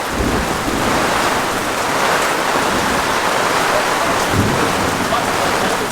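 Heavy rain pouring down in a thunderstorm, a dense steady hiss, with low rumbles of thunder at the start and again about four seconds in.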